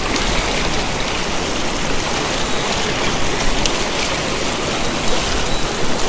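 Mountain stream water rushing over rocks in a shallow riffle close to the microphone, a steady, even rush.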